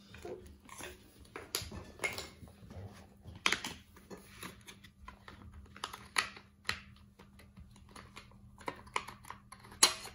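Puzzle pieces being handled and pressed into a jigsaw puzzle board, a run of irregular light clicks and taps with a few sharper knocks.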